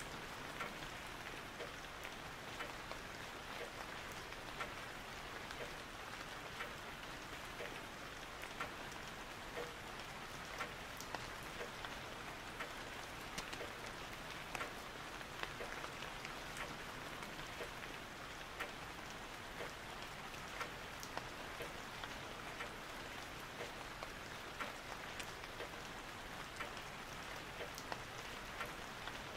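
Steady rain, with scattered louder individual drops ticking through it.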